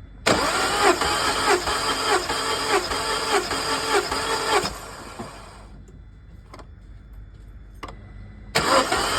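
Peugeot 207 engine being cranked by its starter motor without firing, with a regular pulsing as each compression stroke loads the starter, as when cranking for a compression test. It cranks for about four and a half seconds, stops, and cranks again near the end.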